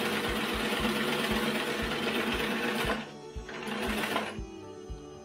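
1948 Singer 15-90 sewing machine running at speed, stitching through fabric. It stops about three seconds in, runs again for under a second, then stops. Background music with a steady beat plays underneath.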